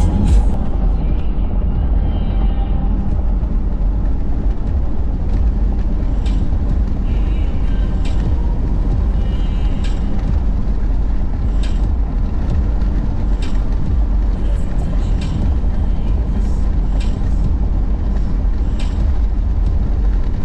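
Road noise inside a vehicle cruising on a highway: a steady low rumble of tyres and engine. A short sharp tick-thump comes every two seconds or so as the tyres cross transverse cracks and patches in the worn asphalt.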